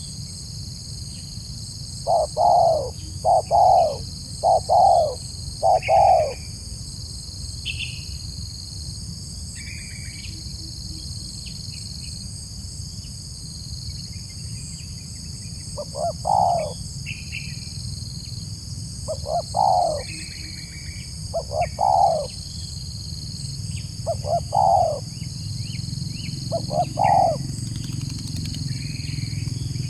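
Spotted dove (tekukur) cooing: a quick run of four or five coos about two seconds in, then single coos every two to three seconds in the second half. A steady high insect buzz underneath.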